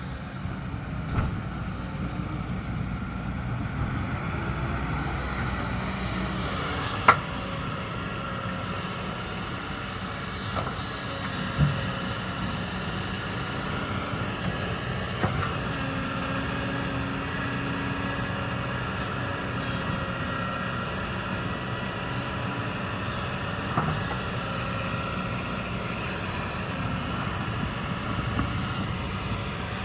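Kobelco hydraulic excavator's diesel engine running steadily, with a few sharp knocks, the loudest about seven seconds in.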